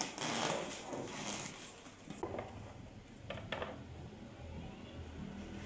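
A plastic chopping board being handled and set against the wall on a stone counter: rustling at first, then a few light knocks and clicks.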